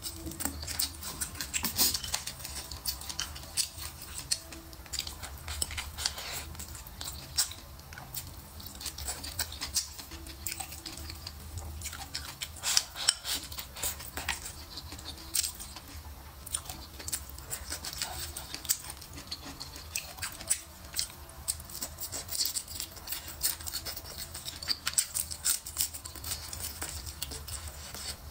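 Close-miked chewing and eating of a stir-fried shrimp and pepper dish: an irregular run of small crackling clicks and mouth sounds, over a steady low hum.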